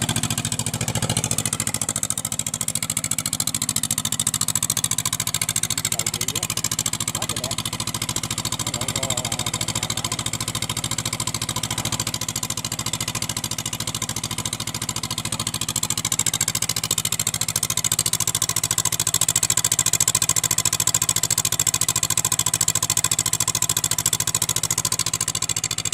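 Two-cylinder engine running steadily at an even speed, with a smooth, quiet note.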